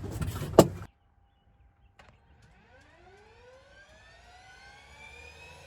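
A sharp click and brief handling noise, then a Bell UH-1 Huey's turboshaft engine starting. After a tick, a whine climbs steadily in pitch and grows louder as the turbine spools up.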